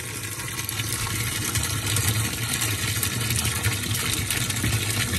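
A thick stream of pumped water gushing from a 27 mm pipe into the stainless-steel drum of a top-loading washing machine, a steady splashing with a steady low hum underneath.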